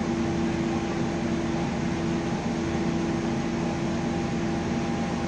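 A 75-ton mobile crane's engine running steadily while it holds a suspended load. It gives a constant drone with a steady hum that holds one pitch.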